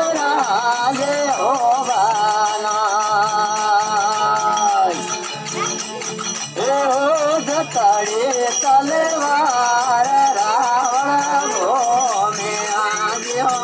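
Folk song: a solo voice singing, holding one long note a couple of seconds in and pausing briefly midway, over a steady beat of rattling, jingling percussion.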